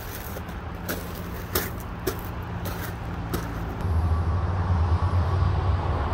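Footsteps crunching through dry brush and twigs, a few sharp crackles, then about four seconds in a much louder low rumble sets in and holds.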